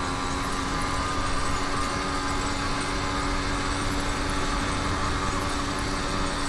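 YD100 two-stroke motorized bicycle engine running at a steady speed, holding one unchanging note.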